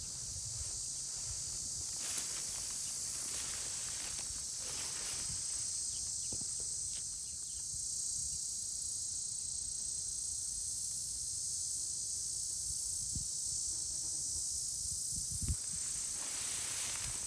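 A steady, high-pitched chorus of insects singing in grassland, unchanging throughout. Beneath it run a low rumble and a few soft knocks, one about two seconds in and another near the end.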